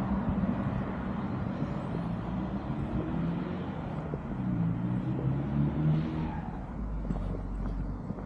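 A car driving past on the street, its engine and tyre noise fading away about six and a half seconds in.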